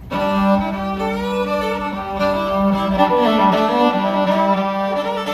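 Fiddle played on its own for a sound check. A steady low note is held under a moving melody line.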